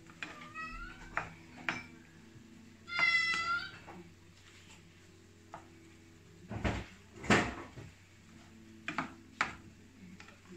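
A cat meows twice, a short faint call about half a second in and a louder one about three seconds in. A spatula scrapes and knocks against the frying pan while stirring rice and shrimp, with the loudest knocks about six and a half to seven seconds in.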